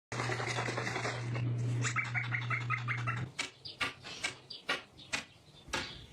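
Pet parrot calling: a rapid run of short chirps about two seconds in, over a steady low hum. After that come a series of sharp clicks.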